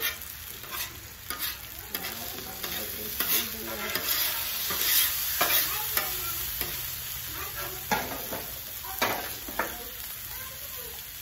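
Food sizzling on a hot griddle with a steady hiss, broken by irregular clinks and scrapes of a spatula working the food.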